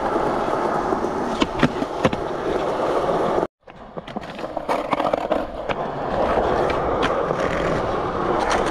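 Skateboard wheels rolling on a concrete skatepark surface, with several sharp clacks from the board. The sound cuts out abruptly for a moment about three and a half seconds in, then the rolling resumes.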